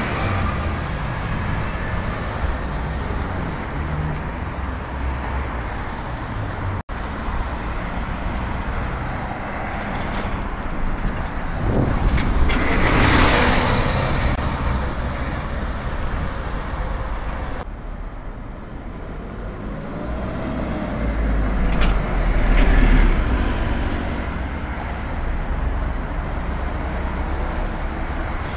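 Street traffic with double-decker bus engines running as buses pull away and pass, the engine noise swelling loudest about halfway through and again near three quarters of the way.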